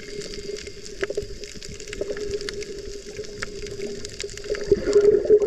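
Underwater water noise picked up by a camera in its housing: a muffled, steady wash with many scattered sharp clicks and crackles, growing louder about a second before the end.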